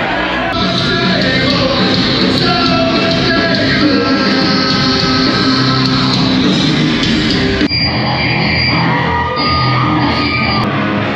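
Live nu-metal band playing loud, with a singer over distorted guitars and drums, heard from the crowd in a club hall. The music changes abruptly about eight seconds in.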